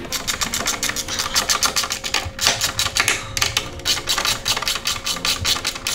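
Ratchet wrench clicking rapidly as the snowmobile ski's pivot bolt is spun loose, with a second wrench holding the nut on the other side.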